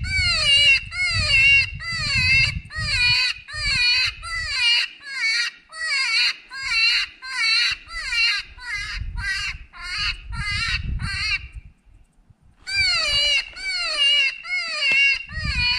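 Predator call sounding a high, wavering distress cry over and over, about twice a second, to lure coyotes and foxes. It breaks off for about a second near the end, then starts again.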